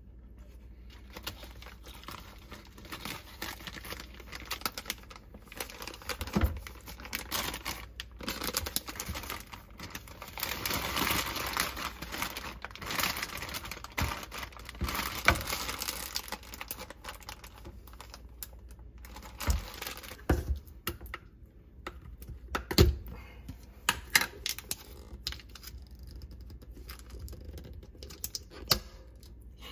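Plastic zipper bag crinkling and rustling as pieces of crumble cake are packed into it, with small taps and clicks of handling on a wooden cutting board. Later come a few louder knocks, and near the end the clicks of a plastic yogurt tub's lid being handled.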